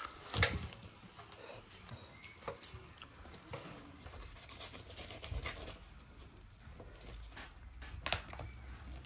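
Knife cutting and sawing through the crisp roasted skin and meat of a whole lamb stuffed with rice, with scraping and rubbing sounds and scattered small clicks. A sharp knock comes about half a second in.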